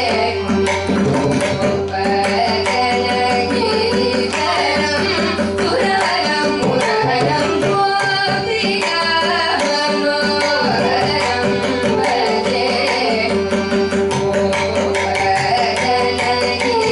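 Carnatic vocal duet in raga Mohanam, two young female voices singing together with violin following the melody and mridangam drumming, over a steady drone note.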